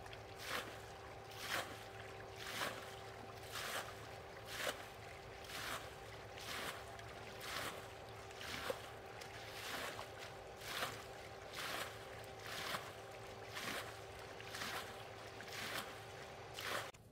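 Muddy canal water being bailed by hand with a plastic basin, a scoop and splash about once a second as each load is flung out. The pool is being drained to expose the fish.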